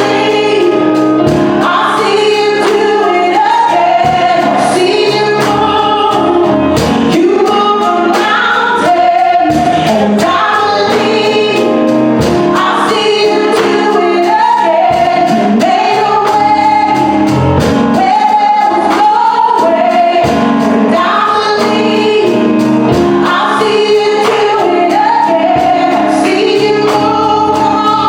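Gospel worship song with a lead singer and group vocals over a band: sustained keyboard chords, a bass line and a steady drum beat.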